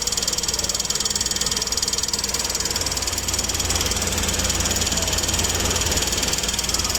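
Mitsubishi Pajero V6 engine idling steadily, with an even, rapid ticking over the low rumble.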